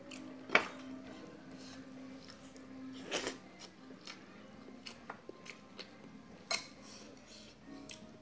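Eating by hand from a plate: chewing and lip smacks mixed with a few sharp clicks of fingers against the plate, the loudest about half a second in, others about three seconds and six and a half seconds in.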